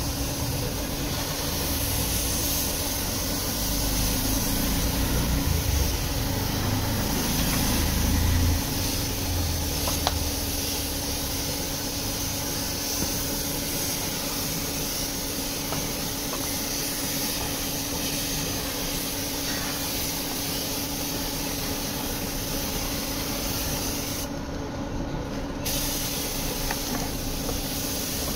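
Compressed-air paint spray gun hissing steadily as it sprays paint, cutting out for about a second near the end and then starting again. A steady low hum runs underneath.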